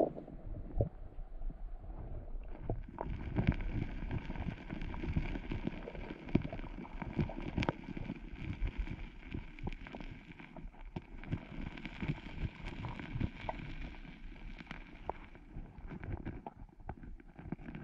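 Underwater sound of digging in a gravelly riverbed: many dull knocks and clicks of stones, shells and fossil material knocked together as the silt is stirred up. A steady higher whine runs through the middle and stops a few seconds before the end.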